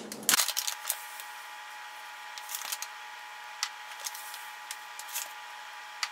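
Sugar being scooped from a plastic bag into a steel measuring cup: faint scattered rustles and light clicks over a steady faint hum.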